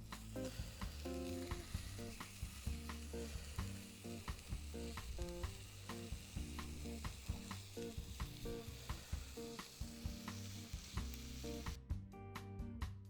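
Strip steak sizzling in a cast iron pan, a steady hiss that cuts off abruptly near the end, over background music with a steady beat.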